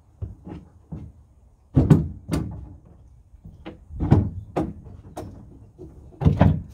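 Irregular wooden knocks and clunks as boards and scrap pieces are handled and shifted inside a wooden boat hull, with a few louder clunks about two seconds in, around four seconds and near the end.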